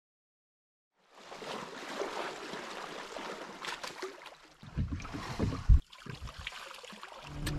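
After about a second of silence, shallow lake water sloshes and splashes around a person wading beside a boat. Toward the middle come a few low bumps and one sharp knock, the loudest sound, as he hauls himself up onto the boat's stern.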